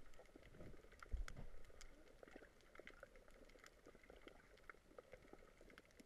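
Faint underwater crackle of scattered short clicks, picked up by a camera underwater, with a muffled low thump a little after a second in.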